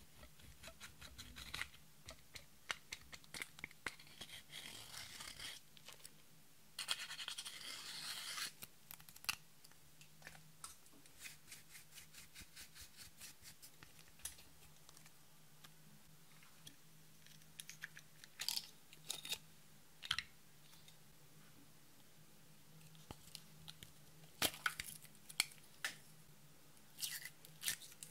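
Pressed blue eyeshadow being scraped and dug out of its compact pan with a thin tool, scratchy scraping and crumbly crunching as the powder breaks up, in spells that grow sparser into scattered clicks and taps. A faint steady low hum runs underneath.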